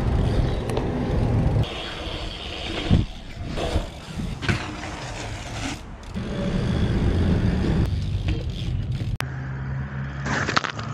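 BMX bike riding on pavement and concrete: tyres rolling and rumbling, with wind buffeting the camera microphone. A sharp knock comes about three seconds in, and a run of clicks and knocks from the bike near the end.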